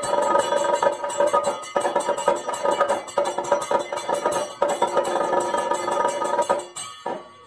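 Live Kathakali accompaniment music: rapid, dense percussion strikes over sustained ringing tones, fading out near the end.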